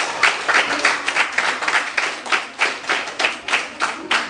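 A classroom audience applauding, the claps settling into a fairly even beat of about three to four a second.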